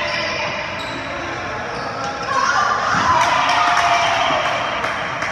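Volleyball rally on an indoor hardwood court: the ball thuds off players' arms and hands with sharp knocks, and voices shout loudly in the hall from about two seconds in.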